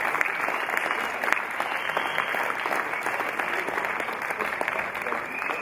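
Audience clapping after a dance number, the applause easing off gradually.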